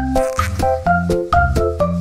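Upbeat background music with a steady beat of about four hits a second, a bright melody of short notes and a bass line.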